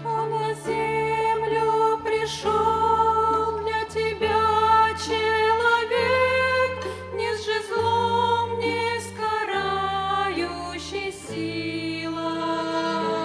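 Two women singing a slow Christmas hymn in Russian, accompanied by a violin ensemble with held low bass notes beneath the melody.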